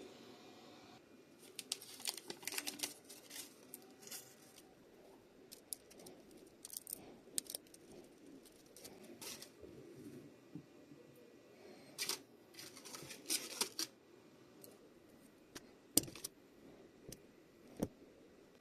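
Hands working on a power-tool battery pack: irregular short scraping and rustling handling noises with small clicks, and two sharp clicks near the end.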